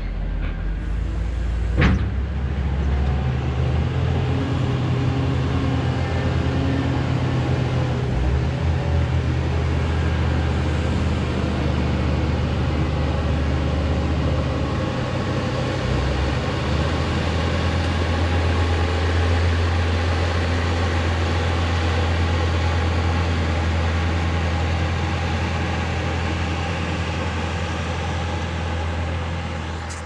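Heavy diesel engine of a New Holland W170 wheel loader running steadily under load as it drives over and packs a silage clamp, a deep drone with a brief sharp knock about two seconds in.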